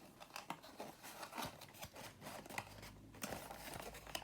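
Faint rustling and small clicks of paper and card game components being handled.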